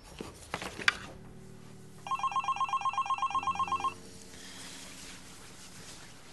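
Telephone ringing: one burst of rapid electronic trilling, about two seconds long, starting about two seconds in.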